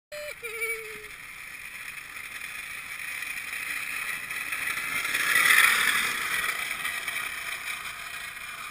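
Drift trike coasting down asphalt and passing close by: the rushing scrape of its sliding hard plastic rear wheels swells to a peak about five and a half seconds in, then fades as it rolls away.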